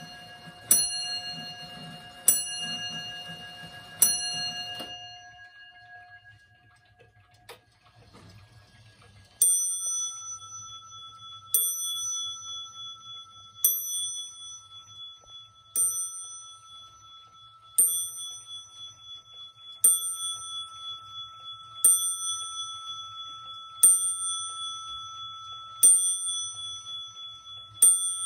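Two pendulum wall clocks strike the hour on their bells, one after the other. First, the painted-dial Dutch wall clock gives its last three strokes about a second and a half apart, and the ringing fades out. After a pause of a few seconds, a Dutch brass-crested wall clock starts a slow strike on a higher-pitched bell, about one stroke every two seconds, ten strokes in all.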